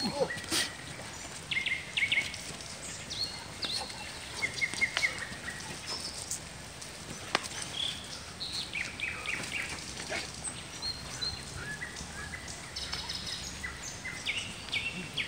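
Woodland songbirds chirping and calling over a steady background hiss, with one sharp click a little past halfway.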